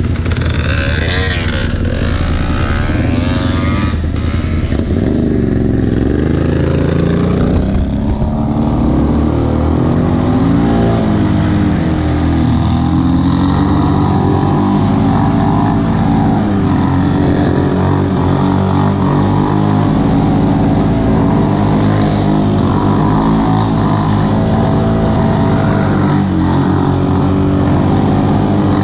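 Can-Am 400 XT ATV's single-cylinder engine running while riding, its pitch rising and falling with the throttle through the first several seconds, then holding steadier.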